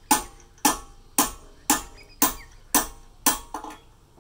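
Hammer blows on a drift punch, knocking the roll pin through a hydraulic rock breaker's chisel-retaining pin. There are about eight sharp metallic strikes at a steady pace of roughly two a second, each ringing briefly.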